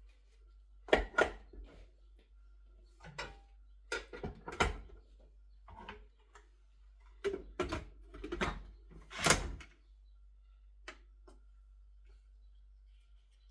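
Handling clatter of plastic food-processor parts: a series of sharp knocks and clacks, the loudest about a second in and again near nine seconds, then quiet. No motor is running.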